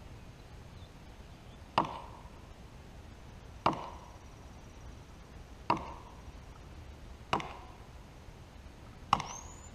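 Axe chopping into the trunk of a large standing tree: five strikes about two seconds apart, each a sharp knock with a brief ring.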